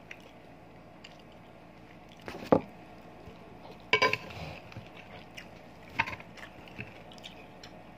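Metal spoons clinking and scraping against a serving plate of pork sisig during a meal: a few sharp clinks, the loudest about two and a half seconds in, others near four and six seconds in, one with a short ring.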